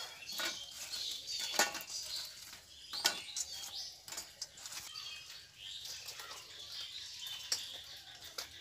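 Crisp fried nimki being set down one by one on a steel plate, with a few sharp clicks of pastry and hands against the metal. Birds chirp in the background.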